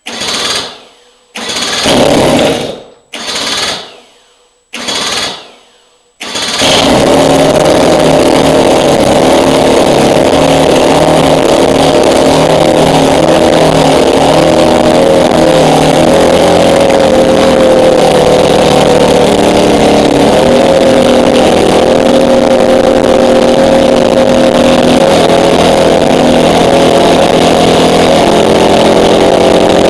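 30 cubic inch Bourke two-stroke engine being cranked in four short bursts, then catching about six seconds in and running steadily, with a slight dip in its pitch partway through. A clean start: it "started nice" and "sounded good".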